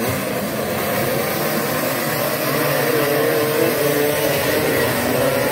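A pack of Vespa racing scooters revving and idling together at the start line, several engine notes wavering up and down over one another.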